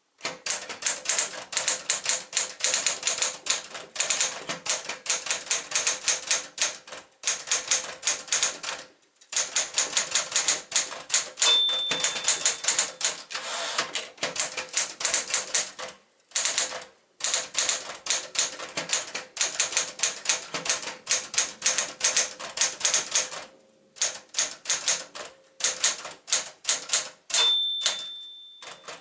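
Sears Citation manual portable typewriter, a rebadged Smith-Corona SCM Galaxie, being typed on: rapid runs of key strikes with short pauses between them. A short bell ring is heard twice, the margin bell warning of a line's end.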